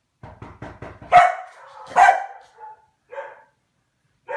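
A Komondor barking: two loud barks, a little over a second and about two seconds in, then two softer ones, after a quick run of short taps in the first second.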